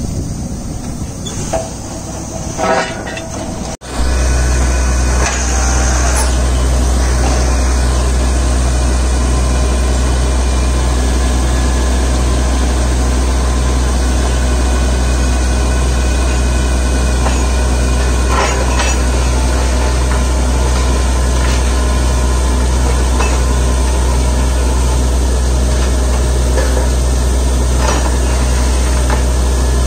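A truck-mounted borewell drilling rig running, after a cut about four seconds in: a loud, steady low drone with a regular throb, with a few clanks.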